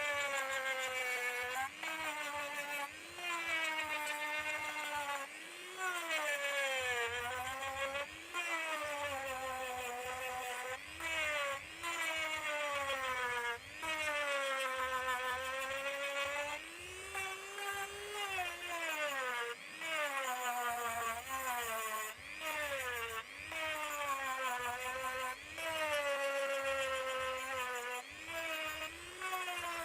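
A small hand-held electric rotary tool (mini drill) running, its high whine dropping in pitch and climbing back again and again as the bit is pressed into the work and eased off.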